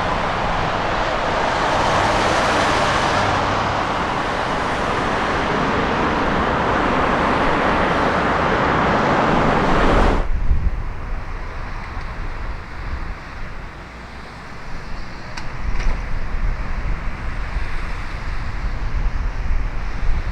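Jet freighter's engines making a loud, steady roar as it comes in to land in strong crosswind. The roar cuts off suddenly about halfway through, leaving gusty wind buffeting the microphone in a low rumble.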